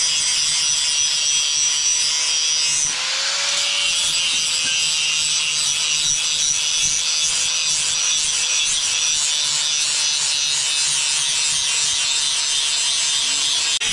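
Electric handheld angle grinder running steadily, its disc grinding metal with a continuous harsh hiss. The motor's pitch rises briefly about three seconds in as the load eases, then settles again under load.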